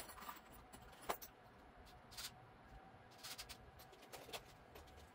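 Near-quiet room tone with faint handling noises: a click about a second in, brief rustles around two and three seconds in, and a light knock near the end, as a piece of OSB board and small hardware are picked up and carried.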